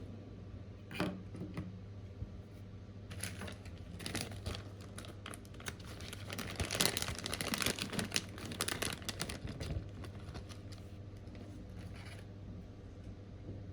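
Close-up scratching, clicking and crinkling of small tools working on a small plastic part, busiest in the middle, over a steady low hum.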